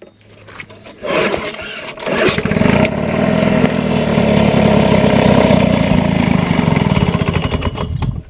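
1980s Lawn Boy two-stroke mower engine starting: a quiet second, then it catches and builds up, and from about two and a half seconds in it runs loud and steady with a fast, even firing beat.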